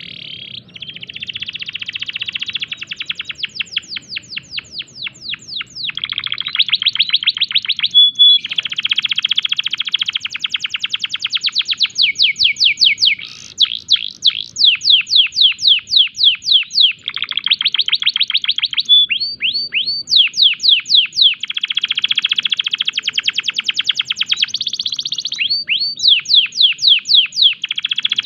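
A male domestic canary in breeding condition, singing one long unbroken song. It moves between fast rolling trills and runs of quick downward-sweeping whistled notes, changing phrase every second or two.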